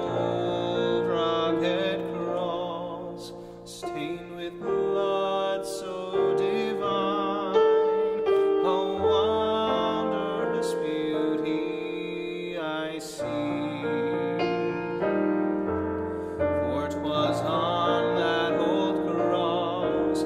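A baritone singing a slow hymn with piano accompaniment, the voice wavering with vibrato on held notes.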